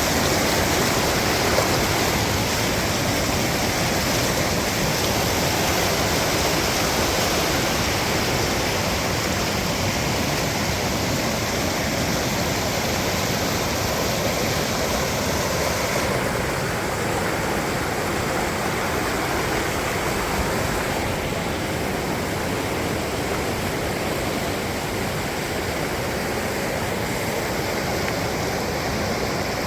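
Waterfall: a steady rush of falling water. The high hiss drops off a little about halfway through.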